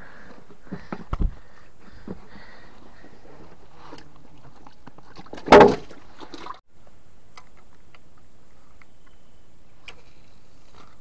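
Knocks and thumps against the hull of a small wooden plank boat, with a single loud thud about five and a half seconds in, then only faint light ticks.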